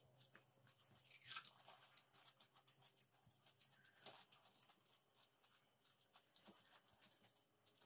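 Faint crunching and crackling of crisp, hollow pani puri (golgappa) shells being cracked open with a fingertip and bitten, with chewing between. The loudest crunch comes about a second and a half in.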